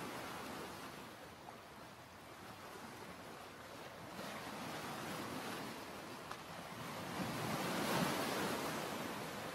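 Ocean surf washing on a beach, with wind, as a steady hiss that swells louder with a breaking wave about eight seconds in.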